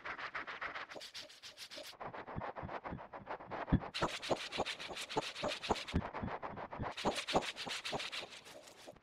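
Rapid scratching and rubbing, a quick run of short strokes, turning sharper and duller in turns every second or two.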